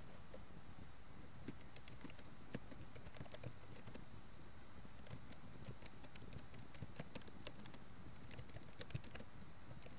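Computer keyboard typing: light, irregular keystrokes over a steady low hiss.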